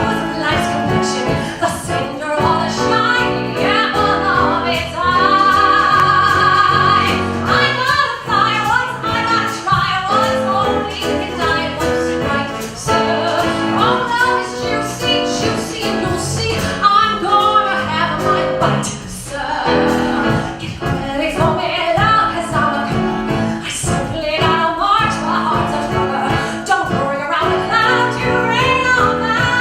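A woman sings with instrumental accompaniment. About five seconds in she holds one long note with vibrato.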